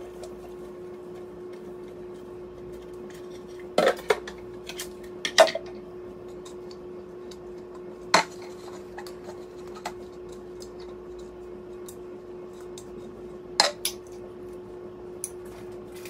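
Plastic humidifier parts being handled at a kitchen sink and knocked against the counter: a few sharp clacks and clatters, the loudest about five seconds in, over a steady low hum.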